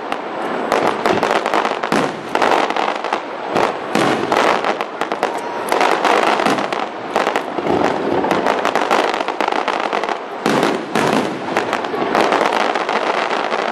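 Fireworks display going off in a continuous barrage: rapid, overlapping bangs and crackle as shells burst and fans of comets fire, with no pause.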